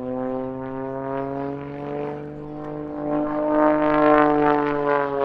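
Extra 330SC aerobatic monoplane's six-cylinder engine and propeller droning past at display power. The drone grows louder, peaks about four seconds in, then drops in pitch and fades as the aircraft goes by.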